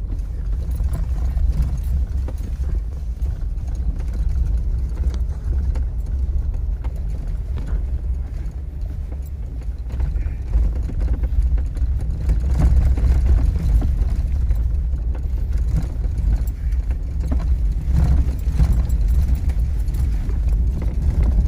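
Jeep Wrangler driving along a sandy dirt trail, heard from inside the cabin: a steady low engine and tyre rumble with frequent light knocks and rattles from the bumpy track. It gets somewhat louder about halfway through.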